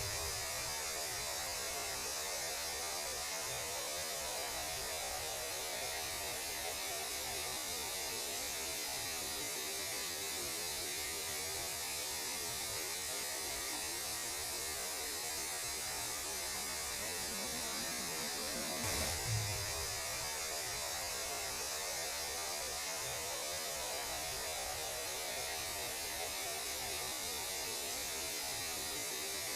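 Steady hiss of noise, offered as the radio noise of space, over a low steady hum, with a brief low thump about 19 seconds in.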